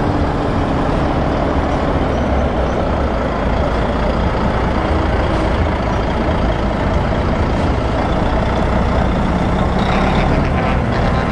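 Volvo tractor units' straight-six diesel engines running loud and steady as the trucks drive off one after another: a Volvo FH500, then a Volvo FH16 with tall vertical exhaust stacks.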